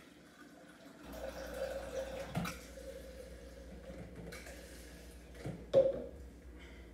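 Coffee pumped from an airpot flask running into a blender jar, with a knock about two and a half seconds in and a louder knock near the end.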